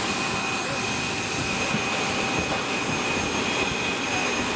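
Jet turbine running steadily: an even rushing noise with a high, steady whistle.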